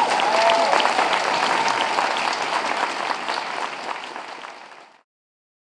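Crowd applauding after a speech, with a few voices whooping near the start; the clapping cuts off abruptly about five seconds in.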